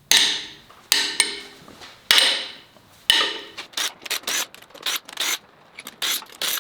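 Wrench work breaking loose the cylinder head bolts on a Ford 5.4L 4-valve V8: five sharp metallic snaps that ring briefly, then a quicker run of shorter metal clicks and knocks.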